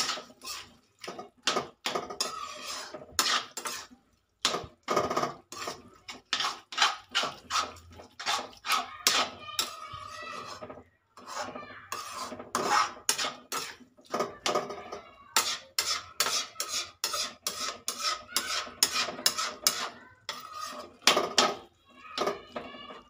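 Metal spatula scraping and clinking against a metal kadhai, stirring potatoes and spinach in quick repeated strokes with a few short pauses.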